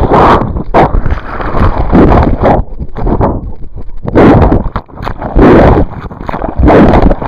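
Loud bursts of rushing, rubbing noise on a waterproof camera's microphone as the camera is swung and jostled about, coming roughly once a second.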